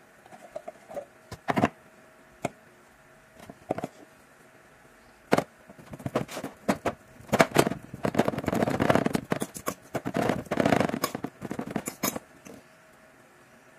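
Metal fork mashing a ripe banana on a ceramic plate: a dense run of scraping and clinking of the fork against the plate, loudest through the second half. A few separate knocks and taps come before it.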